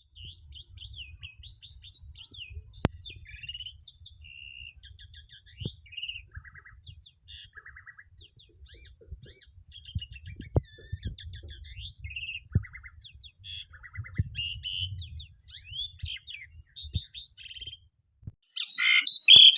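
A jalak (starling) in full song ('gacor'): a rapid, varied run of short whistles, chirps and buzzy trills, with a few sharp clicks, ending in a louder harsh call.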